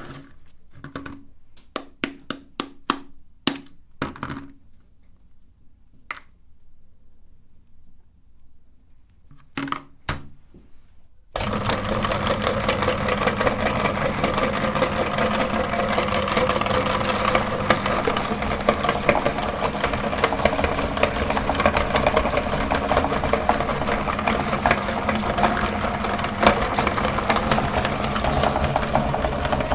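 Scattered sharp clicks and handling noises, then about eleven seconds in an electric meat grinder's motor starts suddenly and runs steadily with a constant hum.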